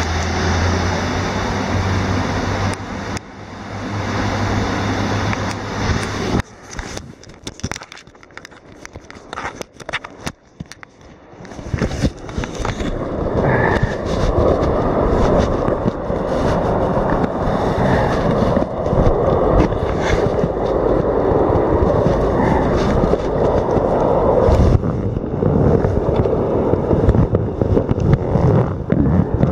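Rushing water of a river weir for the first few seconds, then handling noise on the microphone: rubbing, scraping and knocking, with many small clicks, that runs on to the end.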